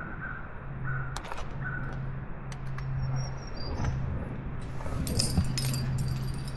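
Metal climbing gear on a harness rack, carabiners and cams, clinking in scattered light clicks, with a busier jingle about five seconds in.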